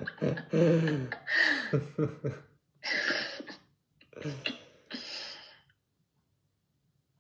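A person's voice in short broken phrases, stopping about five and a half seconds in, then dead silence.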